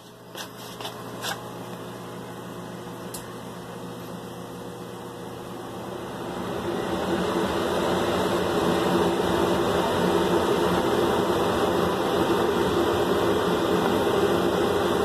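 Steady mechanical hum with a rushing hiss, swelling louder about six to eight seconds in and then holding level. A few light clicks come in the first seconds.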